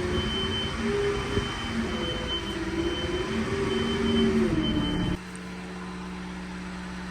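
Tractor engine running with its pitch wavering, alongside a steady high beep; about five seconds in the sound drops suddenly and the beep stops, leaving a lower, quieter steady hum.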